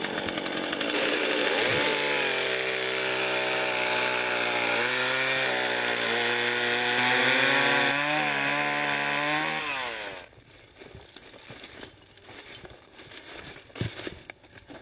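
Two-stroke petrol chainsaw starting up and running at full throttle as it cuts wood, its pitch dipping and wavering under load. About ten seconds in, it winds down, leaving only scattered knocks and rustling.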